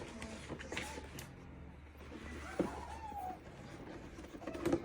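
A puppy whimpering faintly, with a short falling whine about three seconds in, among light clicks and rustles.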